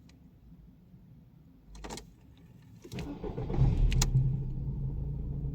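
VW Bora's 1.6 AKL four-cylinder petrol engine being started: a short whirring noise about two seconds in, then the engine cranks and catches about three seconds in with a couple of sharp clicks, and settles into a steady idle.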